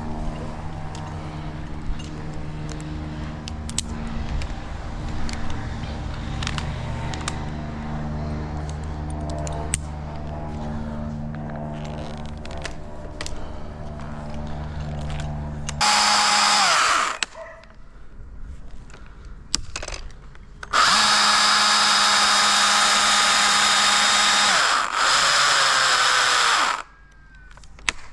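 Chainsaw idling with a low steady drone, then revved hard for about a second, and near the end run at full throttle for two long stretches of about four and two seconds, the pitch falling each time the throttle is released.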